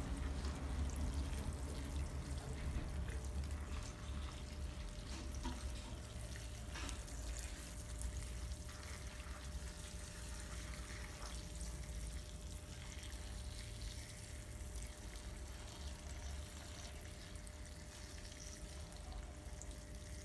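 Water pouring from a watering can onto a compost pile, a steady sprinkling and trickling, over a low rumble.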